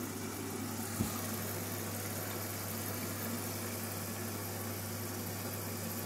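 Candy front-loading washing machine at the start of its wash cycle: a steady low hum with a faint hiss, and a single knock about a second in.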